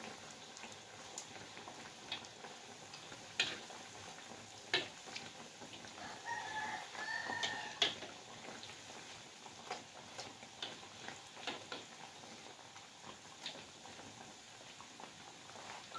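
Breaded risoles deep-frying in a wok of oil: a low steady sizzle, with scattered sharp taps and clicks as the pieces are turned over. A brief pitched call sounds around six to seven seconds in.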